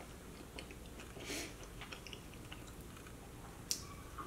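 A person chewing and biting into a chicken wing: faint eating sounds with small mouth clicks, and a sharp click near the end.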